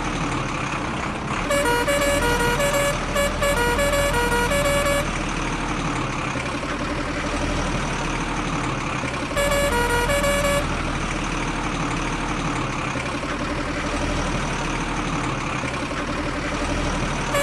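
A vehicle's motor running steadily, with a multi-note horn sounding over it: a run of changing toots for about three and a half seconds, then one more short burst of horn about nine seconds in.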